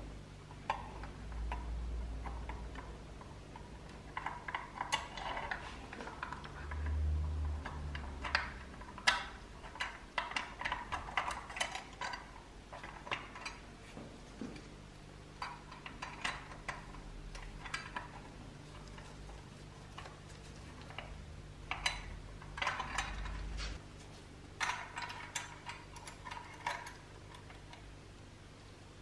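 Irregular small clicks and taps of a screwdriver and metal lift-arm parts being fitted to a toy bulldozer, coming in clusters with pauses between, over a low steady hum.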